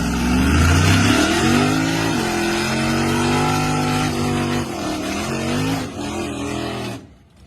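Muscle car engine revving: the pitch climbs quickly, holds high and steady for a few seconds, then drops off as the throttle is released, and the sound cuts off abruptly near the end.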